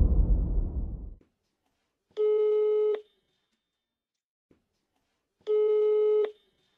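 Phone call ringback tone played over a smartphone's loudspeaker: two evenly pitched beeps of under a second each, about three seconds apart, as the call rings out unanswered. A low noise fades away in the first second before the first beep.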